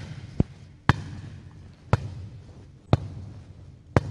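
A volleyball being bumped underhand off the forearms against a gym wall, in a run of sharp slaps about once a second.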